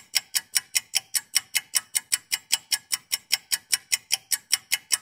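Rapid, even mechanical ticking, about five sharp ticks a second, each one decaying quickly.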